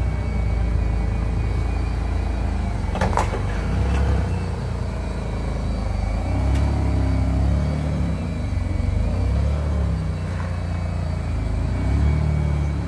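BMW E46 sedan's engine running as the car creeps forward at low speed, its note rising and falling. A sharp knock sounds about three seconds in, and a fainter one a few seconds later.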